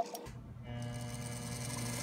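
A 7x14 mini lathe switched on: its motor starts with a low hum about a quarter second in and spins up within half a second to a steady running whine, turning the four-jaw chuck with a block of square aluminium stock clamped in it. One sharp click sounds at the very start.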